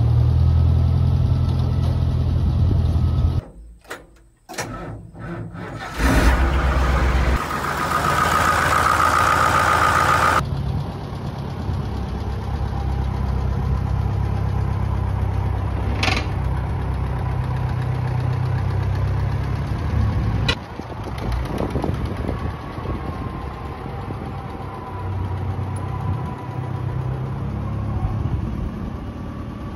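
Small farm loader tractor's engine running steadily at idle. It is broken by a few seconds of near quiet about four seconds in, then a louder, noisier spell that lasts about four seconds.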